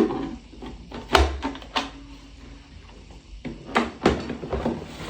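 Plastic clicks and knocks from the dirty-water tank of a wet-cleaning vacuum being opened and handled: a sharp click at the start, a few knocks a little over a second in, and more near the end.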